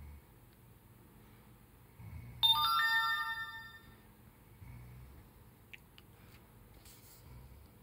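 A bright chime of several ringing notes sounds once, starting suddenly about two and a half seconds in and fading away over about a second and a half.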